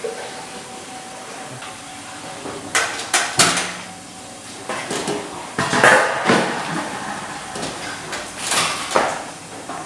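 Stainless steel gastronorm pans and trays knocking and clattering in several bursts, starting about three seconds in, as vegetables are tossed and moved around in them.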